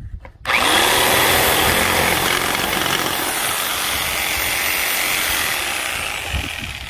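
Electric jigsaw cutting through a solid-wood board along a curve, finishing a round hole. It starts abruptly about half a second in with a loud, steady buzz of motor and blade, which slowly gets quieter near the end.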